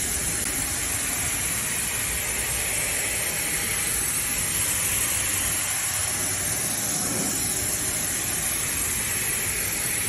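Pressure washer spraying a steady jet of water through an HVAC unit's finned coil, a continuous hiss as it rinses the cleaning soap out.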